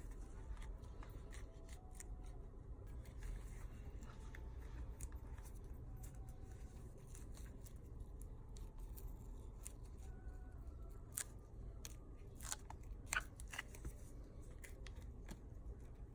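Metal pick scraping and clicking faintly along the edge of a phone's back glass as it cuts through the adhesive foam, with a few sharper clicks near the end.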